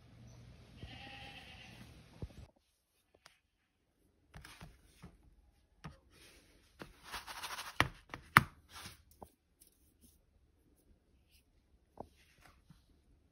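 Metal spoon clinking and scraping against a bowl while beating eggs: scattered sharp clicks with short scraping strokes, thickest and loudest a little past the middle.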